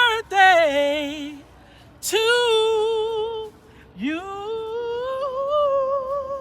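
A woman singing unaccompanied in a strong vibrato, drawing out the close of a birthday song. It goes as a falling phrase, a long held note, then a note that slides up from below and is held to the end.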